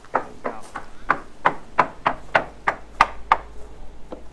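Fiberglass hull of a 1998 31-foot Ocean Master being sounded with a surveyor's hammer: a steady run of sharp knocks, about three a second, each with a short hollow ring, getting fainter near the end. The surveyor judges the hull solid, with no blisters or voids found.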